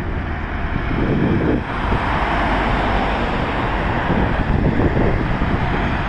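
Road traffic going past on a dual carriageway: cars and vans driving by with tyre noise, and wind buffeting the microphone as a low rumble.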